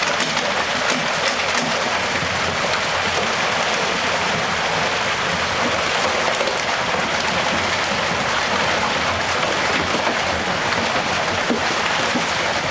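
Steady rush of water and trout pouring from a hatchery stocking truck's release pipe into a lake.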